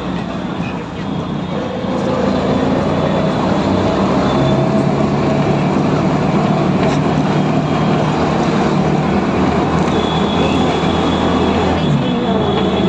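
Auto-rickshaw engine running steadily, with a low hum and road noise, heard from inside the passenger compartment while riding.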